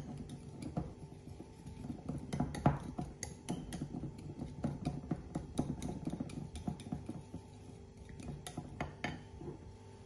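Small wire whisk beating a wet oat-and-milk mixture in a ceramic bowl, its wires clicking and scraping against the bowl in quick, irregular taps.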